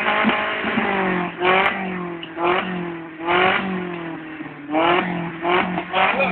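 Car engine revved in a series of short throttle blips, about one a second, each rising in pitch over a steady idle. The revving is heard close to the tailpipe for an exhaust sound-level measurement.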